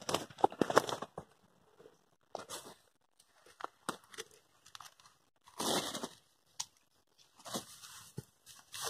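Irregular rustling and crunching, in short bursts with quiet gaps: an angler's clothing and a wet fish sling being handled, and steps on a gravel bank, as he kneels to lower the sling into the water.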